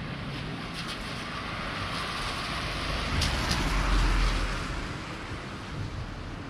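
A vehicle passing by, swelling to its loudest about four seconds in and then fading.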